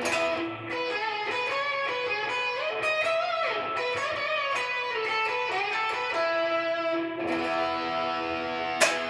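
Electric guitar playing a fast lead lick with string bends, settling into held notes about seven seconds in, with one sharp pick attack near the end.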